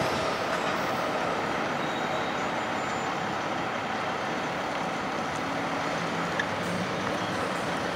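Steady road-traffic noise from cars and trucks starting to drive over a railroad grade crossing, with the rumble of a passed passenger train fading at the start.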